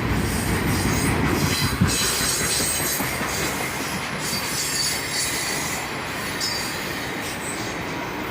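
Freight cars rolling past: a steady rumble of steel wheels on rail with scattered clicks over the rail joints and a faint squeal from the wheels, slowly getting quieter.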